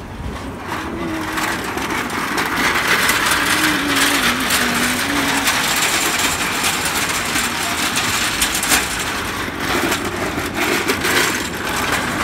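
Busy street-market ambience: a steady hubbub of background voices with the rattling clatter of a metal hand trolley rolling over the pavement.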